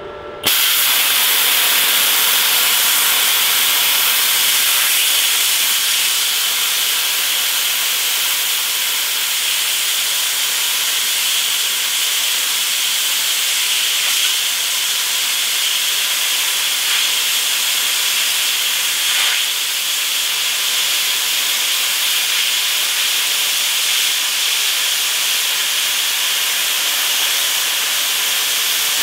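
Hitbox HBC45 plasma cutter cutting steel plate: the arc strikes suddenly about half a second in, then the plasma jet gives a loud, steady hiss as the torch travels through the cut.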